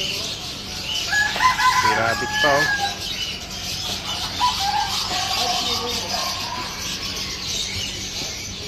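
A rooster crows once, about a second in, over steady high-pitched chirping of many small caged birds.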